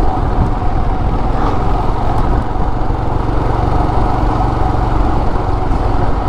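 Royal Enfield Himalayan's single-cylinder engine running steadily as the motorcycle cruises, mixed with wind and road noise.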